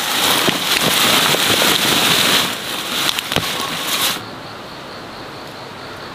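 Dense crackling of loose soil and ginger stalks being disturbed, with many small clicks. It cuts off sharply about four seconds in to a steady, quieter hiss.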